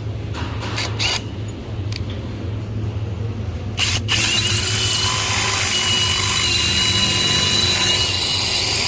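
Power drill running with a Matco HyperStep step drill bit cutting into a cast-iron brake rotor under almost no hand pressure. About four seconds in, the cutting gets louder, with a steady high squeal of the bit on the metal.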